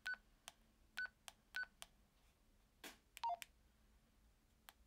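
Keypad buttons of a Baofeng GT-3TP handheld radio pressed one by one: faint clicks, three of them with a short high key beep, then a quick falling two-note beep about three seconds in.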